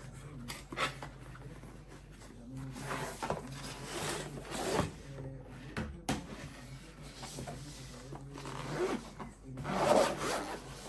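Irregular rubbing and scraping handling noises as objects are shifted about, swelling near the end, over a faint steady low hum.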